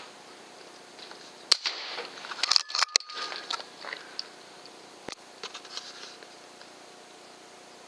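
Sharp mechanical clicks and knocks from a PCP air rifle: a loud one about a second and a half in, then a quick cluster of clicks around three seconds in, and a few fainter ones after.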